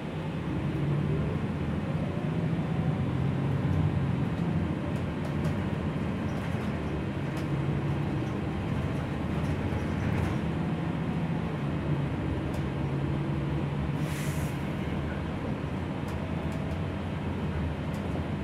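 Gillig low-floor city bus running on the road, heard on board: a steady low engine and drivetrain hum with faint rattles, and a short hiss about fourteen seconds in.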